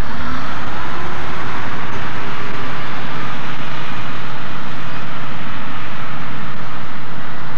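Crawler bulldozer's diesel engine running as the machine works, a dense steady mechanical noise whose pitch rises a little near the end.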